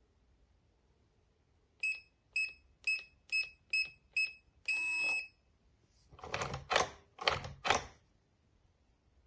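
Fingerprint door lock keypad: six short key-press beeps, then a longer confirm beep, followed by four short clattering noises from the lock mechanism.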